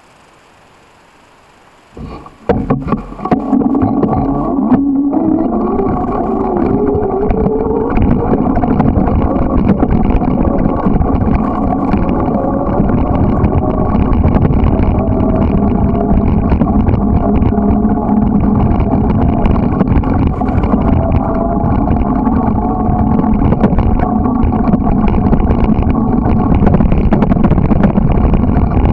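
A small motorbike engine starts up about two seconds in, climbs in pitch as the bike pulls away, then runs at a steady pitch with constant rumble as the bike rides across rough grass.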